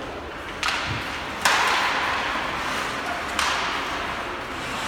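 Ice hockey play off a faceoff: sharp clacks of sticks and puck, each followed by the hiss of skate blades scraping the ice. There are three of them, the loudest about a second and a half in.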